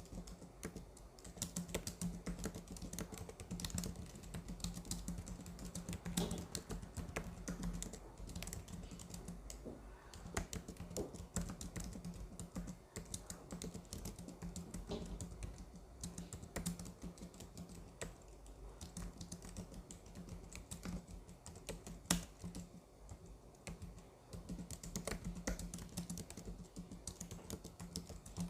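Computer keyboard being typed on, with quick irregular key clicks in runs broken by short pauses.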